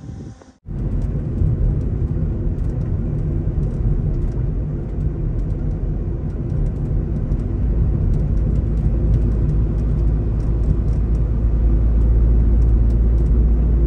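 Suzuki Carry camper driving: a steady low rumble of engine and road noise that starts abruptly about half a second in and grows a little louder toward the end, with faint scattered ticks above it.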